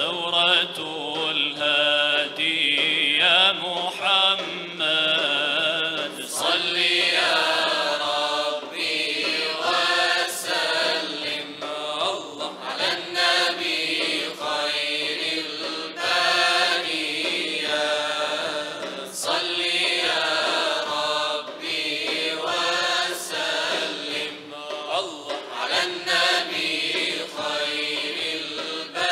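A choir singing an ilahija, a slow, ornamented Bosnian devotional hymn, with solo male and female voices over the group. There are a few sparse strokes of a def frame drum.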